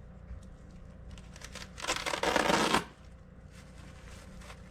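Paper sack of dry mortar mix being opened: one loud rustling, tearing burst lasting about a second, starting about two seconds in, with faint scratches around it.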